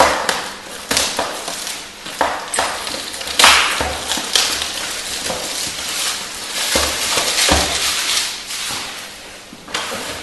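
Clear plastic shrink-wrap crinkling and crackling as it is torn and peeled off a cardboard box by hand, in irregular rustling bursts, the loudest about three and a half seconds in.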